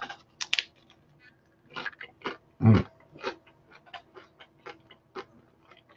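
A person chewing a mouthful of crisp pita-crust pizza with wet crunching and smacking mouth sounds. There is a short low hum from the eater about two and a half seconds in.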